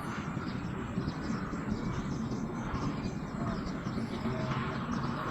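Steady outdoor background noise, mostly a low rumble, with a few faint short chirps in the second half.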